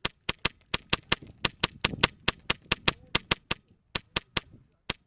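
Airsoft gun firing a rapid string of shots, about five a second, for three and a half seconds, then after a short pause three more quick shots and a single last one near the end.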